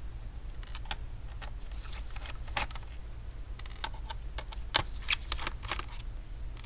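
Phillips screwdriver unscrewing the small screws along the top edge of a laptop's bottom cover: scattered light clicks and ticks, with a sharper click about five seconds in.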